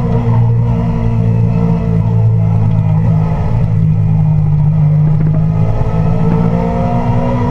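Motorcycle engine heard from on board, running at fairly steady revs while riding, with a slight change in pitch about three quarters of the way through.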